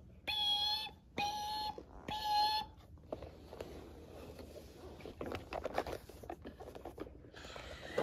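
Three short electronic beeps, one steady high tone each, about a second apart, followed by soft clicking and rustling of toys being handled.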